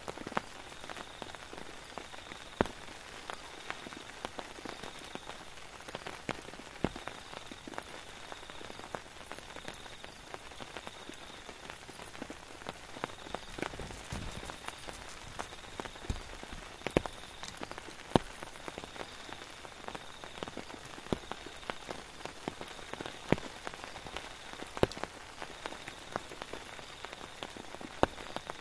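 Steady rain falling, with many heavy drops tapping sharply at irregular intervals. A faint thin high trill comes and goes behind it.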